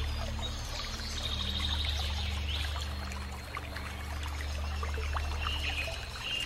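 Crackle and hiss of an old film soundtrack over a steady low hum, with faint held low notes that shift pitch every couple of seconds.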